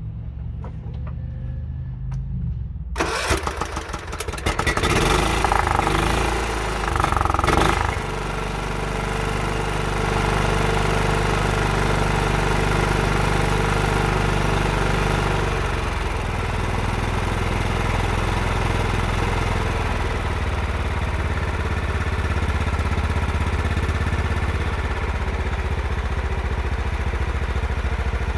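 John Deere 16 hp lawn tractor engine, given a spray into the carburetor, cranked over: about three seconds in it fires roughly and unevenly, then catches and settles into a steady run.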